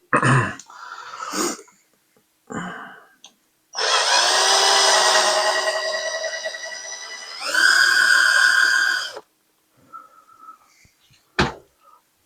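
Small power drill running with a steady whine for about three and a half seconds, then again at a higher pitch for under two seconds, drilling out the rivet that holds a diecast toy truck's base on. A few handling clicks come first, and there is one sharp click near the end.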